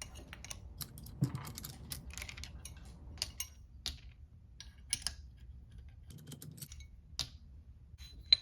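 Irregular light metallic clicks and taps as the steel hard jaws are taken off a machinist's single station vise, with one sharp metal clink that rings briefly near the end.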